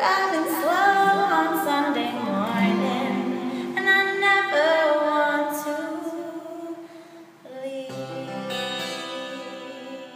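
A woman singing with instrumental accompaniment. She holds long, wavering notes in the second half, and the music fades away near the end.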